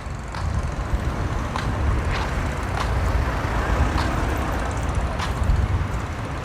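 Road traffic rumbling steadily, with faint sharp ticks every second or so.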